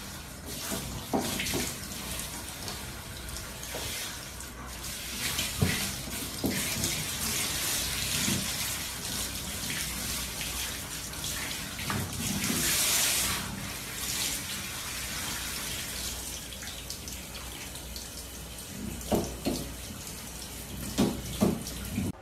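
Shower water spraying onto a dog's wet coat and the stall floor as it is rinsed, with a few short knocks and splashes, several of them close together near the end.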